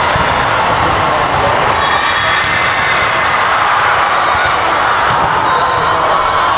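Steady, echoing din of a busy volleyball tournament gym, with volleyballs being hit and bouncing in scattered sharp smacks over a constant background of crowd noise.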